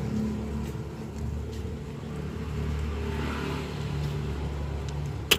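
Road traffic: a motor vehicle's engine running past with a steady low hum that swells slightly and eases off. A couple of sharp clicks come just before the end.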